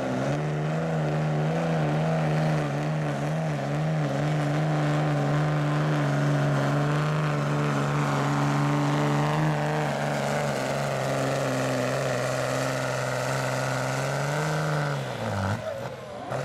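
Diesel pickup truck's engine held at high revs under full load while pulling a weight-transfer sled; the pitch stays steady, then drops sharply about fifteen seconds in as the pull ends.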